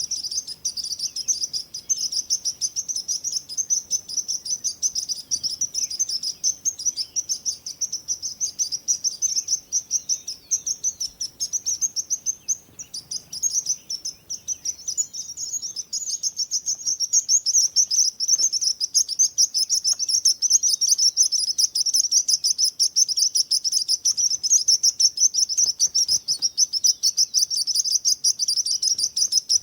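Small birds chirping in a dense, continuous chorus of rapid, high-pitched chirps, with a brief lull about twelve seconds in.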